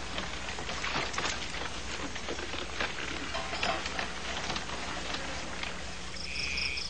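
A crackling hiss with scattered clicks over a steady low hum. About six seconds in, a cricket starts chirping in quick, evenly pulsed high trills.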